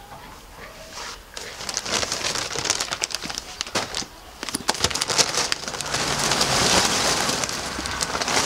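Sack of oak lump charcoal rustling as it is handled, then lump charcoal pouring from the sack into a ceramic kamado grill's firebox. Scattered clicks become a dense, steady clatter of pieces from about halfway through.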